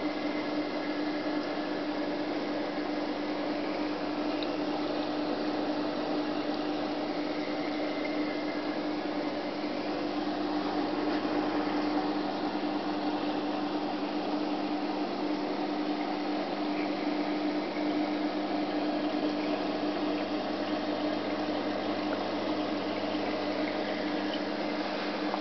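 Reef aquarium equipment running: a steady electrical hum from the pumps with the rush of circulating water.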